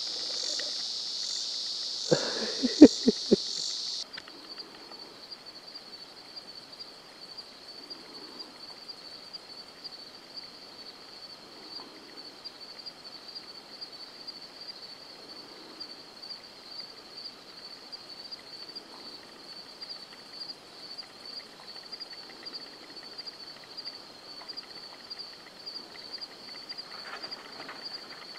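Night insects chirping in a steady chorus, a high pulsing trill; about four seconds in it drops to a quieter, thinner trill. A few sharp clicks sound between two and three and a half seconds in.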